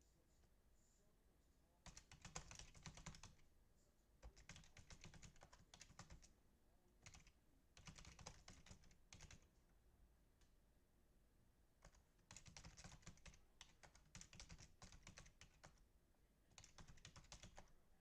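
Computer keyboard typing in several quick bursts of rapid key clicks with short pauses between, as team names are keyed into a list randomizer.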